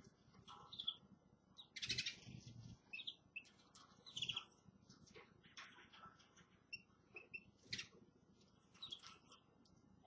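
Caged canaries and other small finches giving short, scattered chirps and calls, faint overall, with a louder burst about two seconds in.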